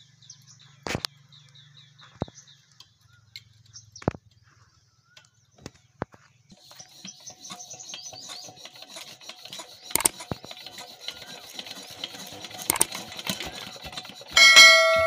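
Scattered metal knocks and clicks of hand work on a stationary diesel engine that is not running, with birds chirping faintly. A short, loud, pitched honk-like tone near the end.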